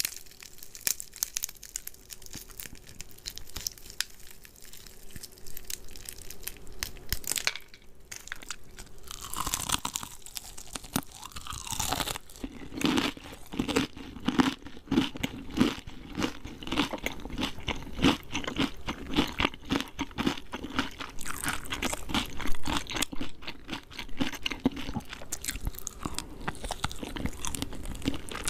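Close-miked crunching and chewing of crispy fried chicken: the breading crackles sharply with each bite, sparse at first and then dense, steady chewing from a little under halfway through.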